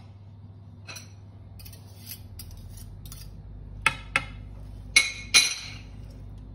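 A metal wire whisk and spoon clinking against a stainless steel mixing bowl. Two light clicks come about four seconds in, then two louder knocks that ring briefly.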